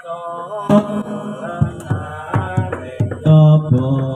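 A voice chanting in drawn-out, sliding sung phrases with musical accompaniment, the accompaniment in the style of a wayang kulit performance's chanted passage, with several sharp knocks scattered through it.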